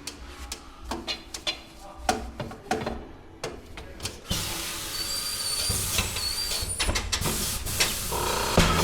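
A few clicks and knocks of metal tools on the wheel, then from about four seconds in a steady hiss of air rushing out as the tire is deflated, ready for the bead to be broken.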